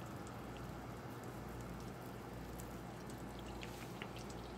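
Butter melting in a saucepan, sizzling faintly with a few scattered soft pops and crackles over a low steady hum.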